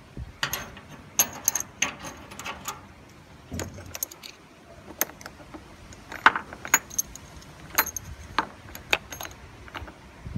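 Small metal locomotive castings clinking and rattling against each other as they are pushed by hand into a wooden crate: irregular sharp clinks, a few of them louder.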